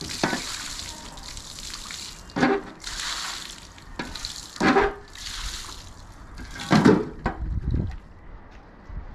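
Water splashing in bursts in a metal wheelbarrow, with four loud knocks about two seconds apart as the wooden-handled shovels and tools in it are shifted against the barrow. The water stops about seven seconds in.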